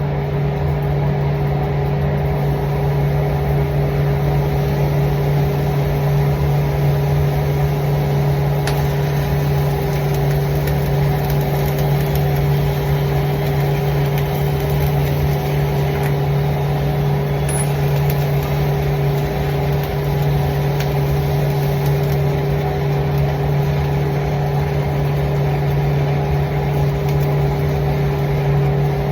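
Steady, loud machine hum with a low drone and a fainter, higher steady tone above it, broken only by a few faint clicks.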